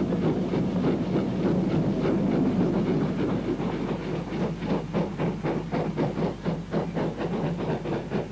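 GWR 'Dukedog' 4-4-0 steam locomotive working a train, with a rush of steam and running noise. About halfway through its exhaust beats stand out clearly as an even chuff, roughly three a second.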